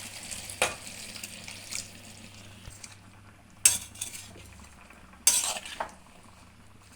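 Metal utensils clinking and scraping against a cooking pan: one clink about half a second in, another near the middle, and a short cluster about two-thirds through. A faint frying hiss fades out early on.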